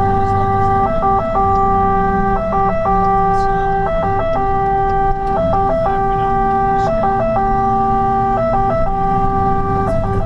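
Fire engine's two-tone siren heard from inside the cab, switching back and forth between two steady pitches about once a second, with the truck's engine running underneath.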